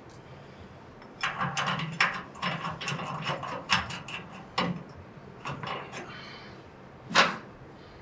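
Irregular metal clicks and scraping from a car battery being handled and shifted on a steel floor pan, then one sharp knock near the end.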